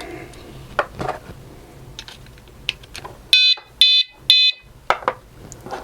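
WSDCAM bike alarm's buzzer giving three short, high-pitched beeps about half a second apart as its AAA batteries go in. Small plastic clicks of the batteries being seated in the holder come before and after the beeps.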